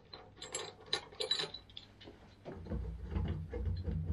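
Handling noise: a quick series of small clicks and taps, then from about two and a half seconds in duller knocks over a low rumble.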